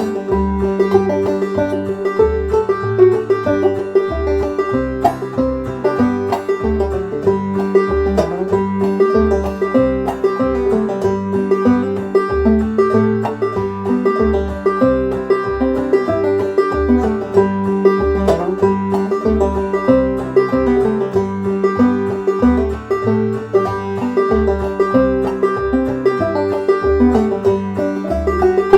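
Clawhammer banjo playing a lively old-time fiddle tune, with quick brushed and plucked notes over a ringing drone string. A Strum Machine backing track of guitar and bass accompanies it, with the bass keeping a steady beat.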